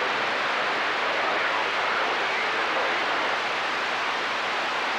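CB radio speaker putting out a steady static hiss: band noise on an open channel between long-distance skip transmissions.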